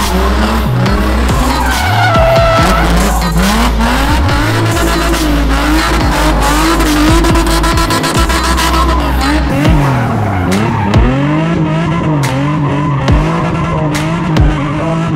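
S13 Nissan Silvia drift car's engine revving up and down hard while its rear tyres screech in a smoky drift. In the second half there are several sharp pops. Music runs underneath for roughly the first two-thirds.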